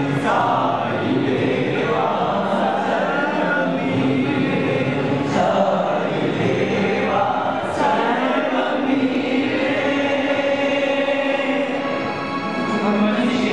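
A group of male voices singing a devotional chant together, continuous and steady.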